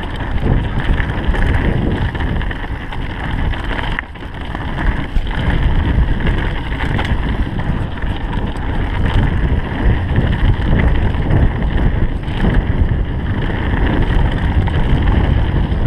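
Mountain bike running fast down a dry dirt trail: a steady rumble of tyres on the ground with frequent knocks and rattles of the bike over bumps, under heavy wind buffeting on the action camera's microphone. The noise dips briefly about four seconds in.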